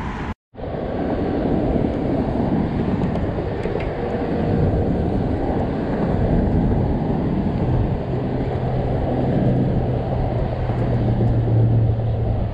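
Steady low outdoor rumble that cuts out completely for a moment near the start. A low steady hum comes in about eight seconds in and grows stronger toward the end.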